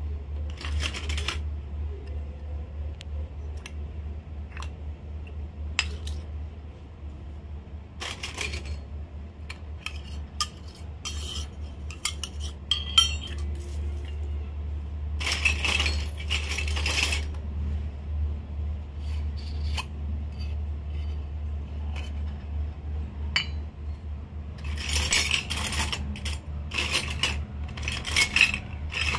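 Miniature steel toy dishes, small plates, bowls and a tumbler, being set down and slid on a concrete floor, clinking and scraping in scattered clicks and short clusters of clatter. A steady low hum runs underneath.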